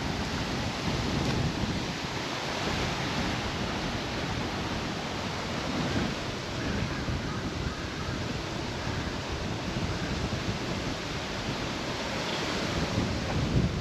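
Steady outdoor wind rushing, with gusts buffeting the microphone in a low, uneven rumble.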